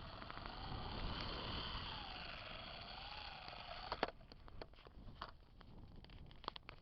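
Wind buffeting the microphone, with a faint whine that wavers up and down as gusts spin the unpowered propellers of a Syma X7 quadcopter. About four seconds in the whine stops, and a sharp click is followed by scattered clicks.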